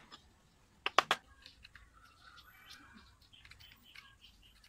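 Three sharp knocks of a blade chopping into wood on a wooden stump block about a second in. Then a utility-knife cutter shaves a green kamagong spoon blank in quick, light scraping strokes.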